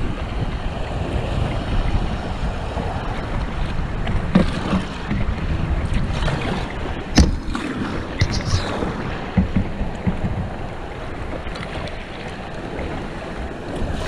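Fast river water rushing through a riffle around a kayak, with wind buffeting the microphone. A few short splashes and knocks break through, the sharpest about seven seconds in.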